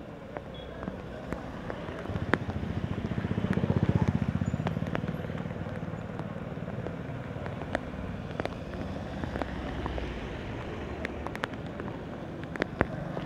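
Traffic on a flooded, rain-soaked street: a motor vehicle's engine passes close, loudest about four seconds in, over a steady hiss of rain and tyres on wet road, with scattered sharp clicks.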